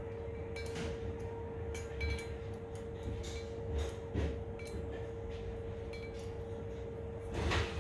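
Scattered light clinks and taps of small metal measuring tools and parts being handled while checking a cylinder head's valve guides, over a steady hum.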